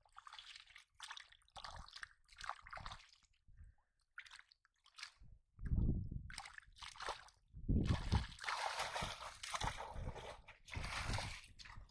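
Hands digging and squelching through wet mud and muddy water in irregular scoops, with sloshing and splashing. The heaviest splashes come about six and eight seconds in, followed by a few seconds of steadier sloshing.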